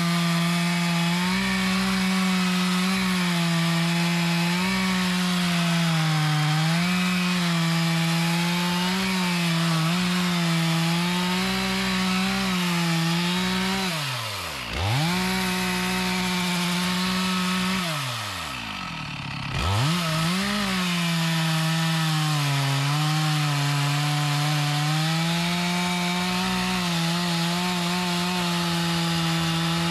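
Petrol chainsaw at full throttle cutting into a mahogany trunk, its engine pitch sagging and recovering under the load of the cut. The throttle is let off briefly about halfway through, and again a few seconds later, each time revving straight back up.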